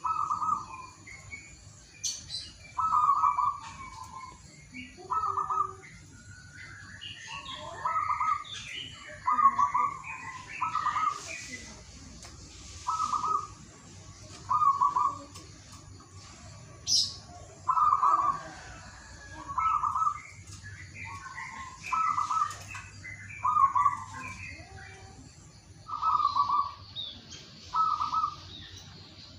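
Zebra dove (perkutut) cooing its song, short staccato coos repeated about every one to two seconds, with other small birds chirping faintly in between.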